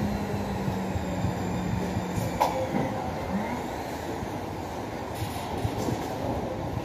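Steady rumbling background noise of a building site, with a low hum that cuts off about two and a half seconds in and a single sharp knock at about the same moment.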